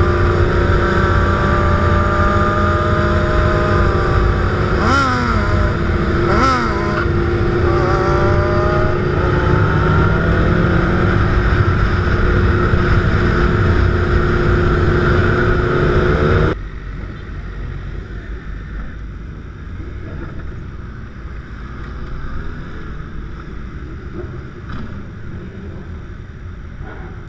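Sport motorcycle engines running at speed in a group ride: a loud steady drone whose pitch dips and climbs sharply twice about five and six and a half seconds in with throttle changes. About two-thirds of the way through the sound cuts off abruptly to a quieter, even rumble of bikes and traffic.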